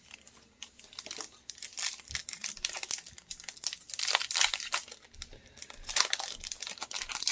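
Foil wrapper of a Pokémon Celebrations booster pack crinkling and being torn open by hand: an irregular run of sharp crackles, loudest about four and six seconds in.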